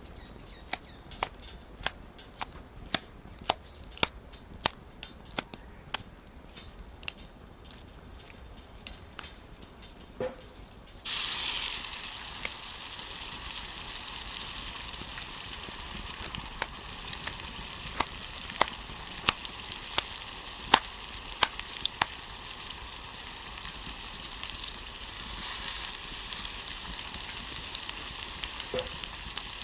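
Sharp crackles and pops from a wood fire, about two a second. About eleven seconds in, a loud sizzle starts suddenly as food goes into a hot pan over the fire, then keeps frying steadily with occasional pops.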